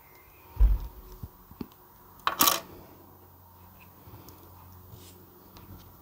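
Handling of a thin metal cutting die and small craft tools: a dull bump under a second in, a few light ticks, then a short sharp metallic clink a little over two seconds in.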